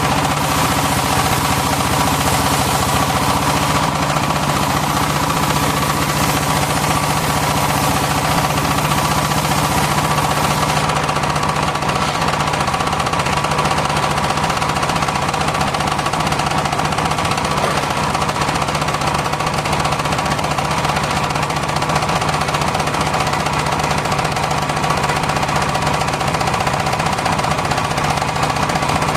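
Engine-driven circular sawmill running steadily, a continuous engine sound with a fast even beat. A high hiss above it drops away about a third of the way in.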